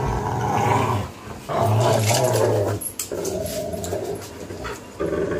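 Rottweiler growling in about four long, rough stretches with short breaks between them, while it bites and tugs on a rope.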